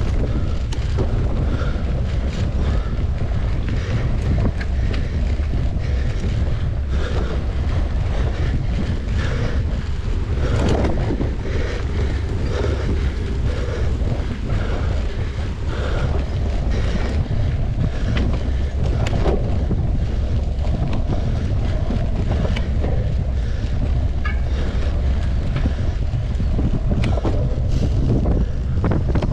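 Wind buffeting the microphone of a mountain bike moving at race speed, a steady low rumble, with frequent short rattles and knocks from the bike over rough ground.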